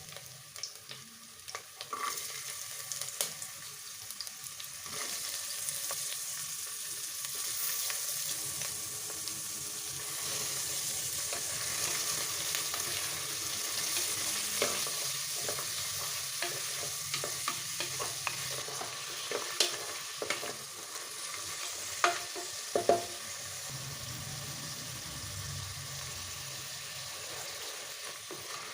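Biryani ingredients frying in hot oil in a pressure cooker pot and being stirred, with a steady sizzle and scattered clicks and scrapes of the spatula against the pot. The sizzling grows louder about ten seconds in.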